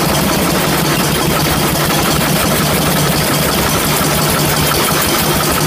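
Lister D single-cylinder stationary engines running steadily at idle, with an even, unchanging beat.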